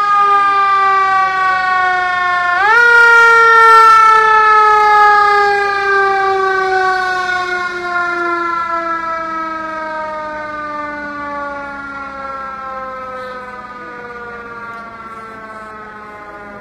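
Emergency vehicle siren sounding one long wail. It jumps up sharply in pitch about three seconds in, then slowly falls and fades away.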